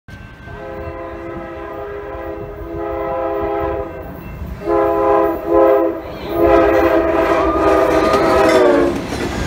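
Amtrak passenger locomotive's multi-note air horn sounding four times as the train approaches: a long blast, a shorter one, a short one, then a final long blast whose pitch drops as the locomotive passes. The long-long-short-long pattern is the grade-crossing warning. Each blast is louder as the train nears, and wheel and rail noise rise near the end.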